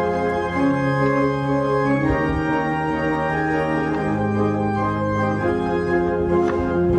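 Organ playing slow, sustained chords, the harmony changing every second or two.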